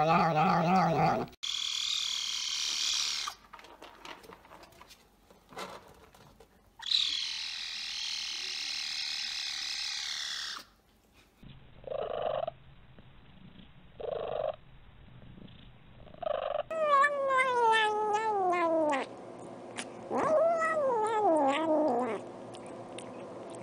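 Domestic cats calling in a run of short separate recordings: a few high, drawn-out cries, then three short meows, then long yowls that slide down in pitch.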